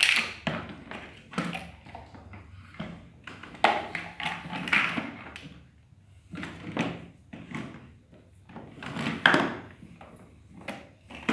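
Large plastic toy building blocks knocking and clattering on a tiled floor as the plastic bucket of a ride-on toy excavator pushes and drops them. The knocks come irregularly, a few at a time.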